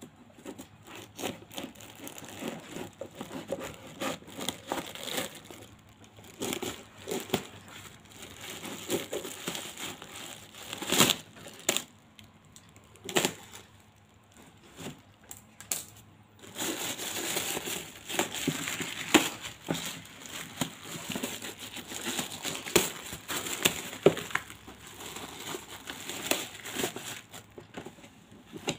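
Black plastic parcel wrapping and packing tape crinkling and tearing as the parcel is opened by hand, with irregular crackling rustles and sharp clicks that grow denser in the second half.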